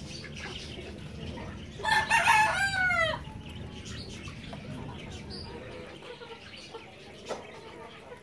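A single loud domestic fowl call about two seconds in, lasting just over a second, broken into a few short notes and ending in a long falling glide, over a low steady background hum.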